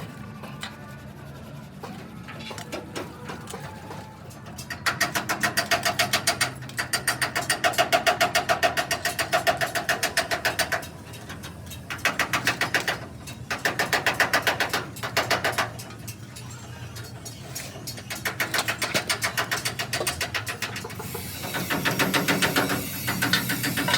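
A power tool running in repeated bursts of rapid, even rattling. The bursts last a second or two up to about six seconds, with short pauses between them.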